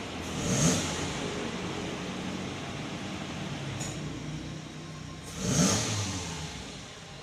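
Motor vehicles passing on a road, two of them swelling up and fading about five seconds apart, each with a rising engine note, over a steady hum of traffic.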